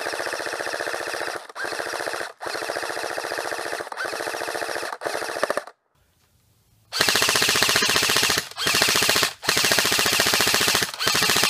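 M4-style airsoft electric gun firing full-auto bursts at about 18 rounds a second, with short breaks between bursts. A silent gap of about a second comes in the middle, and after it the bursts are louder. The mid-cap magazine feeds every round without a misfeed.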